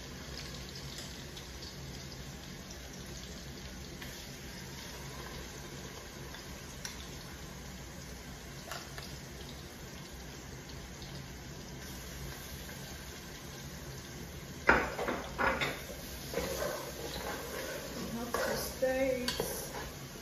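Hot oil sizzling steadily in a cooking pot. From about three-quarters of the way through, louder clattering and scraping come in as spoonfuls of egusi paste go into the oil and the spoon knocks against the pot.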